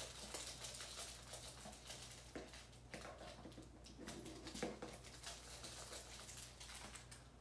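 Small plastic bags of diamond painting drills crinkling as they are handled, with the tiny plastic drills pattering and clicking into a glass jar as they are poured. Around the middle, scissors snip a bag open.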